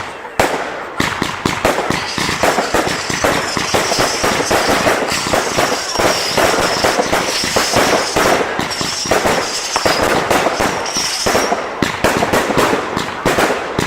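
Fireworks going off: rapid, near-continuous bangs and crackles, several a second, with a high wavering hiss over much of the middle.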